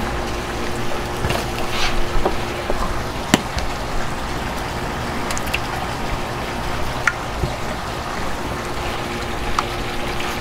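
Steady background rushing noise with a faint steady hum, and a few light clicks and taps from a spice shaker and a metal oil can being handled.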